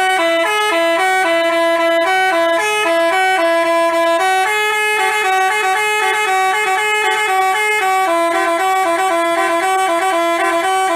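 Basuri telolet bus horn, a multi-tone musical air horn, playing a quick melody of short notes that step up and down without a break.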